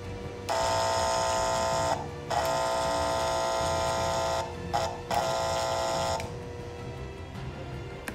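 Electric horn of an American Flyer Santa Fe PA/PB diesel set, a buzzy tone sounded as two long blasts, one short and one long: the grade-crossing signal.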